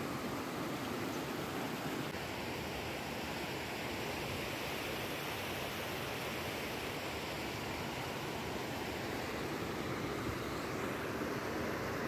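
Fast mountain stream running over rocks: a steady rush of whitewater.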